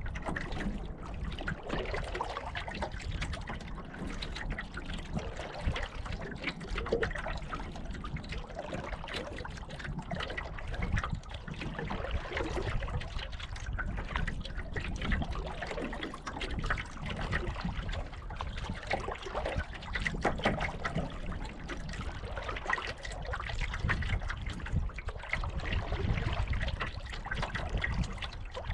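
Small waves lapping and splashing against a canoe's hull, an irregular trickling and slapping of water with no steady rhythm.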